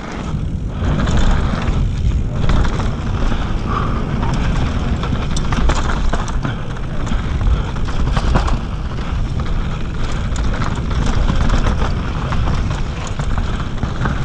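Mountain bike riding fast down a dirt trail: steady wind rush on the camera microphone over knobby tyres rolling on packed dirt, with scattered clicks and rattles from the bike over bumps.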